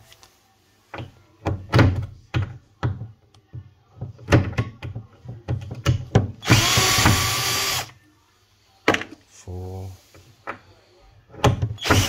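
Cordless drill-driver run in one burst of just over a second, about six seconds in, backing a screw out of an integrated fridge's metal door-slider bracket. Several sharp clicks and knocks come before it and a few more after.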